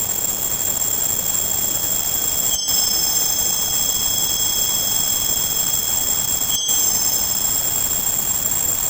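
Tinnitus-masking sound: a steady hiss-like noise with several thin, steady high tones above it. It breaks off for an instant twice, about four seconds apart, and the same sound picks straight back up.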